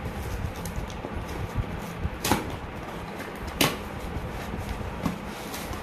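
Cardboard shipping box being torn open by hand: rustling and scraping of cardboard and tape, with two short, loud rips, a little over two seconds in and again about a second later.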